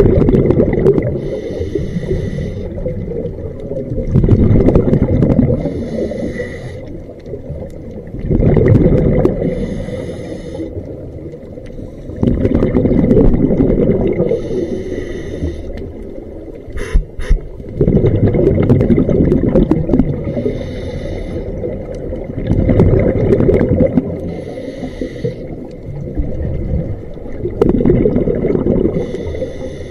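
Scuba diver breathing through a regulator underwater: a hissing inhale through the demand valve alternates with a loud bubbling exhale, one breath about every four to five seconds. A short pair of clicks comes about seventeen seconds in.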